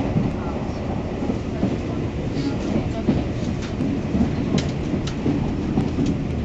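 Passenger train running, heard from inside the carriage: a steady low rumble with a few sharp clicks in the second half.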